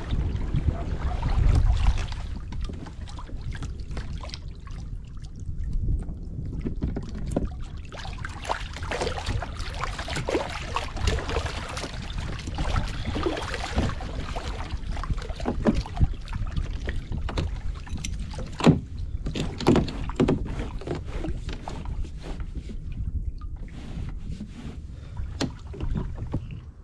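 Water lapping and splashing against the hull of a Hobie Pro Angler pedal fishing kayak under way, with many short knocks and clicks. Wind buffets the microphone in the first couple of seconds.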